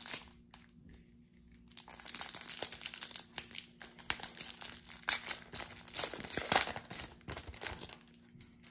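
Foil wrapper of a Topps Match Attax trading-card pack being torn open and crinkled by hand: irregular crackling rustles after a short pause, loudest near the end.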